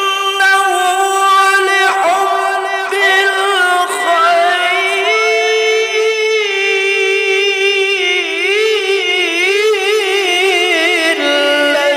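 A male qari's Quran recitation in the melodic tilawah style, sung unaccompanied in a high voice. He holds long ornamented notes, moving up in pitch about five seconds in, then winding down through a fast wavering trill near the end.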